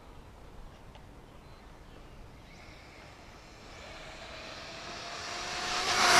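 Electric Hong Nor X3 RC buggy on 4S with a 2650 kV brushless motor approaching at speed: its motor whine and tyre noise swell over the last three seconds and peak as it passes right by at the very end, the pitch dropping as it goes past.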